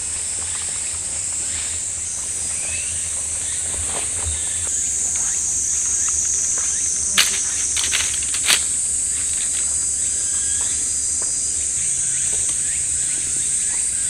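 A steady, high-pitched chorus of insects, with two sharp knocks a little past the middle.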